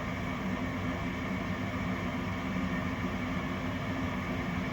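Gas furnace draft inducer motor running with a steady hum during the start-up sequence, while the igniter heats before the gas valve opens.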